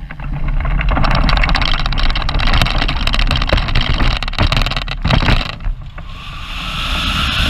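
Hang glider launch dolly rattling and bumping over grass during the aerotow take-off run. Near six seconds the rattling stops and a steady rush of wind on the microphone takes over as the glider lifts off the dolly.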